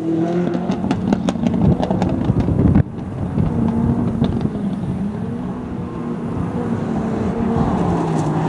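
Opel Astra OPC race car's engine running hard, its pitch shifting up and down, with a run of sharp crackles in the first few seconds. The sound breaks off abruptly about three seconds in and the engine note picks up again, climbing near the end.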